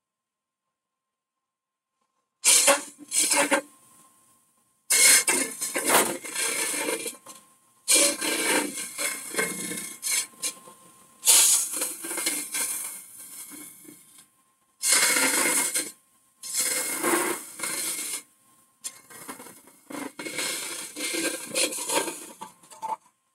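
Hollowing tool cutting inside a spinning holm oak hollow form on a wood lathe: a series of loud, noisy scraping passes of a second or two each, with short silences between them, starting about two seconds in.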